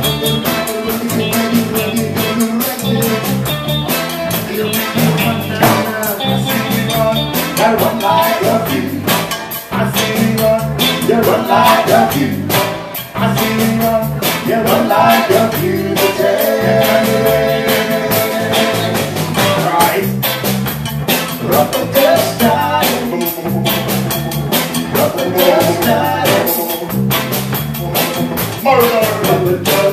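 Live reggae band playing with a steady beat: bass, keyboards, electric guitar and drum kit, with a man singing over them.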